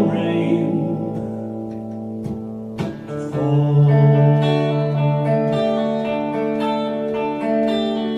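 Solo electric guitar, a Telecaster-style solid body, played in picked notes and chords that ring on. A man's singing voice ends its line in the first second.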